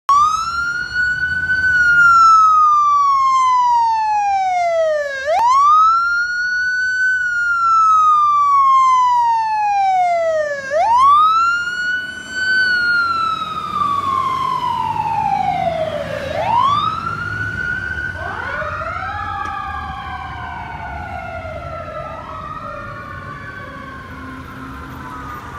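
Electronic wail siren on a fire department rescue ambulance pulling out on a call. Each cycle sweeps up quickly and falls slowly, repeating about every five and a half seconds, and the siren fades as the ambulance drives away. Past the middle a second wail sweeps out of step with it.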